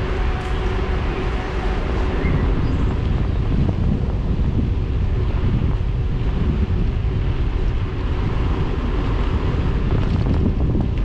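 Wind rushing over the microphone of a camera on a moving mountain bike, with a steady rumble underneath from the tyres rolling on asphalt.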